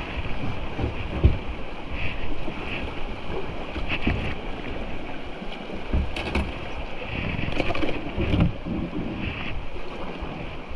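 Rushing creek rapids and wind on the microphone, with several short knocks and splashes from kayak paddles and hulls.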